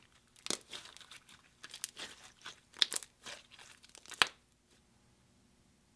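Silver chrome slime squeezed and folded between the hands, giving a run of wet, sticky clicks and crackles. The sharpest pops come about three seconds in and again just after four seconds, and then the sound stops.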